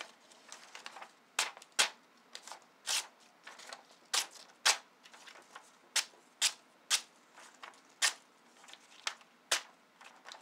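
Freshly sharpened Leatherman E33L blade slicing through paper in a test of its edge: a dozen or so short, crisp cuts at irregular intervals.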